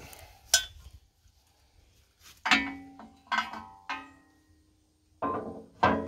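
Sheet-metal cover of a backhoe's control-lever box clanking as it is fitted back over the levers: a sharp tap about half a second in, then several ringing metallic clanks.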